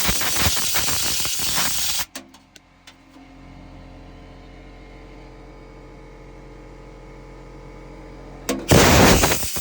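A loud hissing jet cleaning a furnace blower wheel, which cuts off suddenly about two seconds in. A few clicks follow, then a steady low hum with several tones, before the hissing jet starts again near the end.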